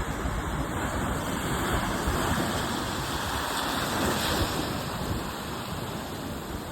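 Sea waves washing onto the shore, a wave swelling in the middle and easing off, with wind buffeting the microphone.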